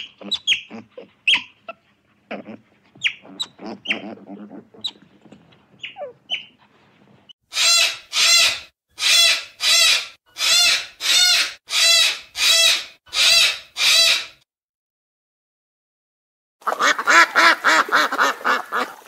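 Animal calls: a run of short chirps first, then nine loud, harsh calls evenly spaced about 0.7 s apart. After a short pause comes a fast, chattering series of calls.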